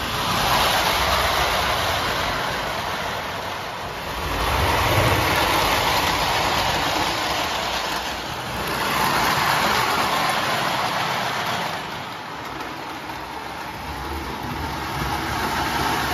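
Marx O-scale electric model train running around its track loop, a steady rumble and rattle of motor and wheels that swells and fades about every four seconds.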